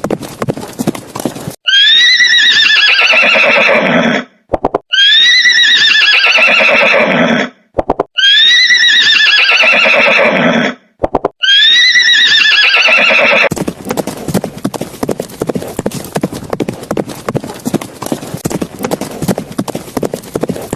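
Horse whinnying four times, near-identical calls of about two and a half seconds each, falling in pitch, over a steady clip-clop of hooves that carries on after the last whinny.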